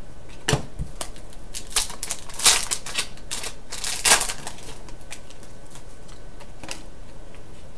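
Trading cards being handled and flicked through by hand, with crinkling of foil pack wrappers: a run of short scratchy rustles and flicks, most of them in the first four seconds, sparser after that.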